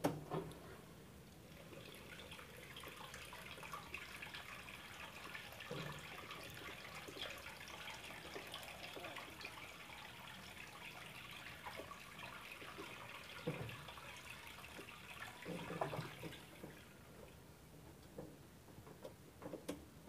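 Soapy water draining out of a Samsung single-tub washing machine's drain onto the floor, a faint steady trickle and splash. The drain valve is held open by hand because the machine is dead. The flow dies away about three-quarters of the way through as the tub empties, with a few soft knocks along the way.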